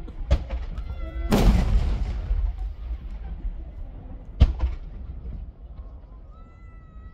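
Aerial firework shells bursting overhead: three sharp bangs, the loudest about a second and a half in, trailing off in a long echoing rumble. A brief high-pitched call is heard twice, after the big bang and near the end.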